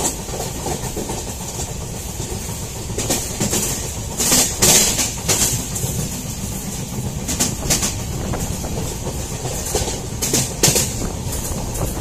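Train running along the track, heard from inside the carriage: a steady rumble with irregular clacks of the wheels over rail joints, a few of them louder.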